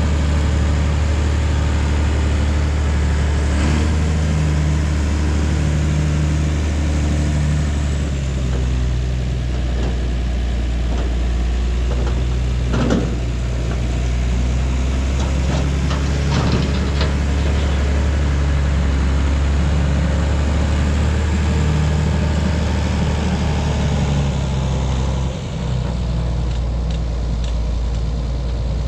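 Large diesel engine running steadily, its low note shifting slightly about eight seconds in, with a few brief knocks or clanks around the middle.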